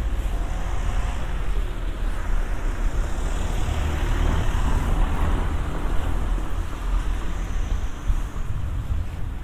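Street traffic: a car passing, its tyre and engine noise swelling to a peak about four to five seconds in and then fading, over a steady low rumble.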